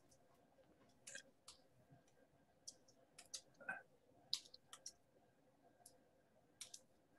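Faint, irregular clicks of computer keyboard keys being typed, coming in short runs with brief pauses between them.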